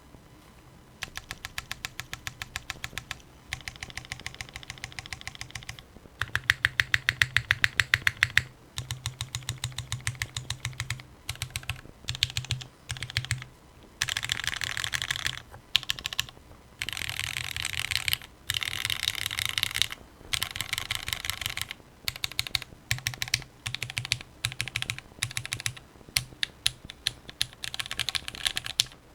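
Typing on a mechanical keyboard with lubed, filmed, broken-in Cherry MX Black Hyperglide linear switches in an aluminium-plate top-mount Tomo, under GMK ABS keycaps. It starts about a second in, with fast bursts of key clicks broken by short pauses, including one run of loud, rapid, evenly spaced strokes.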